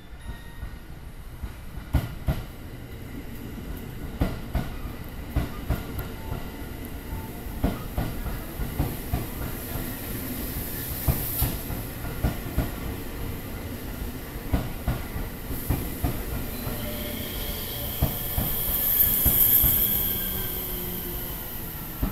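JR 285 series Sunrise Seto sleeper train rolling slowly into the platform, its wheels knocking over the rail joints every second or so. Near the end it gives a high squeal as it slows to a stop.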